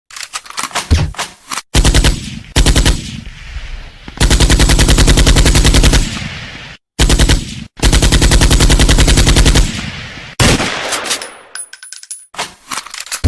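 Recorded machine-gun sound effect: several bursts of rapid automatic fire, each one to three seconds long, with short breaks between them.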